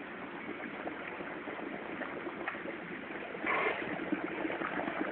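Water swirling and churning in a round tank, a steady rushing noise with a brief louder surge about three and a half seconds in.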